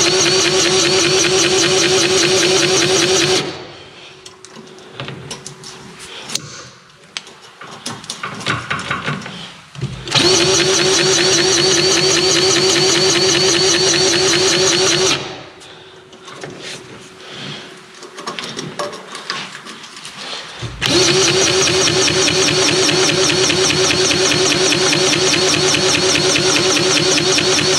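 DeWalt cordless grease gun motor running in three long bursts, a steady fast-pulsing whir, pumping grease into the kingpin grease fittings on a dump truck's front axle. Quieter rattling and handling noise comes between the bursts.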